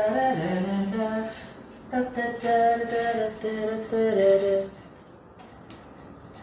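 A man singing a short tune to himself with a few long held notes; the singing stops about five seconds in, followed by a single small click.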